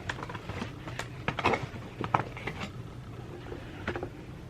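Packaging and goggle parts being handled: scattered light clicks and rustles, with a brief cluster of rustling about one and a half seconds in.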